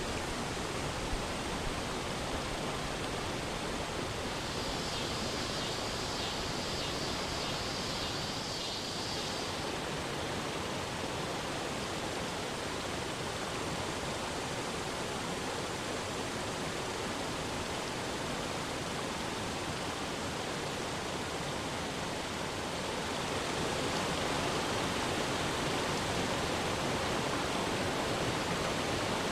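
Saluopa Waterfall's water rushing over tiered rocks in a steady roar. It grows a little louder about three-quarters of the way through. A high-pitched buzz rises over it for about five seconds near the start.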